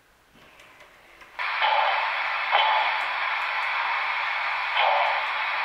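Sound-equipped Broadway Limited Imports M1a HO scale steam locomotive's decoder starting its steam hiss through the small onboard speaker, coming on suddenly about a second and a half in. The hiss holds steady with a few louder swells about a second or two apart as the locomotive begins to move.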